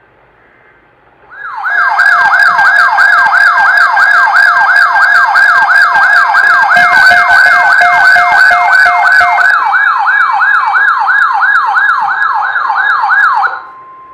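Weather alert radio's built-in electronic siren sounding to signal a received emergency alert: a loud, fast, evenly repeating whooping sweep, about two to three cycles a second. It cuts off near the end, and the broadcast's steady alert tone comes through faintly.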